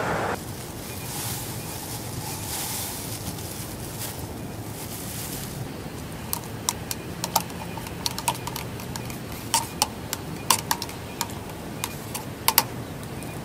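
A soft hiss for the first few seconds. Then a run of sharp, lightly ringing metal clicks and clinks, as a spoon works in a metal mug of coffee grounds on a fire grill. The loudest pair of clinks comes near the end.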